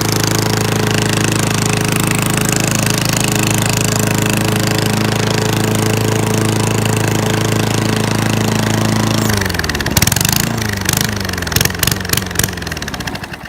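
Small gasoline engine of a home-built lawnmower running steadily, then shut off about nine seconds in: its pitch falls and it knocks a few times as it winds down to a stop near the end.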